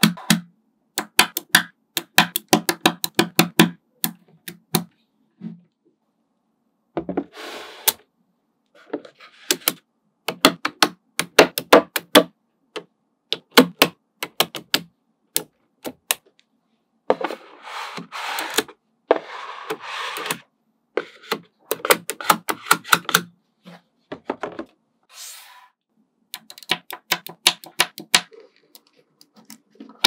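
Small magnetic balls clicking and snapping together in quick runs of sharp clicks, with a few longer rattling stretches as clusters of balls are shifted and pressed into place.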